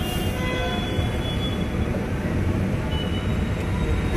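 Escalator running, with a steady mechanical rumble as it carries a rider up to the landing.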